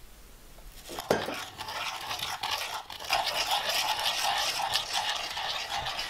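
A small wooden spoon rapidly whipping instant coffee, sugar and water by hand in a mixing bowl for dalgona coffee: fast, continuous scraping and clicking against the bowl, starting about a second in.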